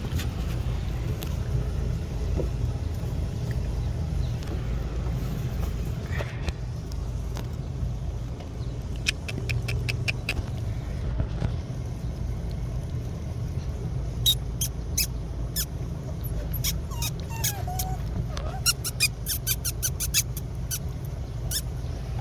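A steady low rumble under two runs of sharp clicks, one short run near the middle and a longer, denser one in the last third. A brief high puppy squeak comes during the second run.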